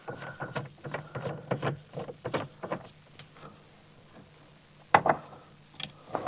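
Light clicks and taps of a small Torx driver working T10 screws out of a steering-column clock spring, with a few sharper clicks about five seconds in.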